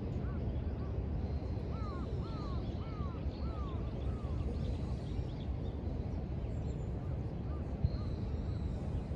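A crow cawing, a run of about six calls in the first four seconds, over a steady low rumble with faint high bird chirps.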